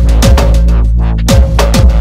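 Electronic dance music in a dubstep style, with a heavy bass line and a beat of deep kick drums and sharp snare hits.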